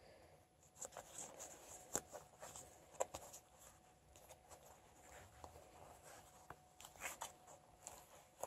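Faint rustling of a fabric running-belt pouch and light clicks as a phone in a hard plastic case is handled and slid into it, with a few louder clicks about two and three seconds in and around seven seconds.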